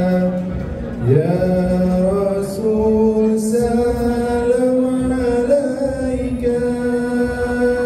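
A man chanting Arabic devotional verses (selawat) into a microphone, holding long drawn-out notes, with a slide up in pitch about a second in.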